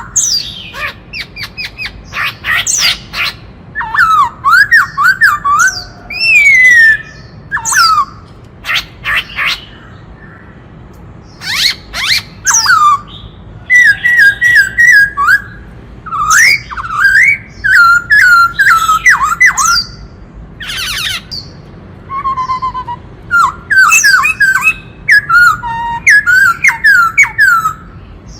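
Black-throated laughingthrush singing a loud, varied song of clear whistles, fast rising-and-falling notes and harsh rattling calls, broken by a couple of short pauses.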